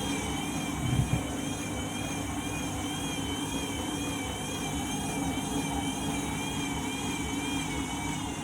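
Candy washing machine running with a motor whine that wavers regularly up and down over a low hum, with two short thumps about a second in. The drum is turning a heavy load of bedding that throws it out of balance, before the spin.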